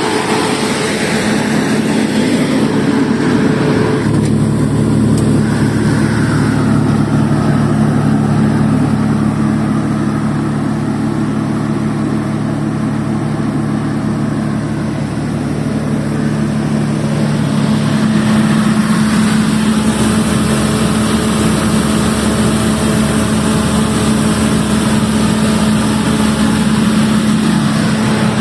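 150 kVA Deutz diesel generator set running at a steady engine speed. A low, even drone runs throughout; its brighter, higher part fades somewhat about four seconds in and comes back after about eighteen seconds.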